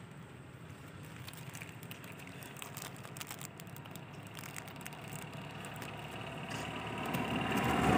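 Faint clicks and rustles of a DSLR camera and its strap being handled and fitted. Near the end a motor vehicle comes closer, its engine growing steadily louder.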